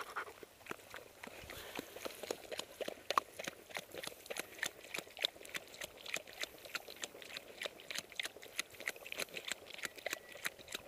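English setter licking and chewing at a hand held to its mouth: an irregular run of small wet clicks and smacks, several a second.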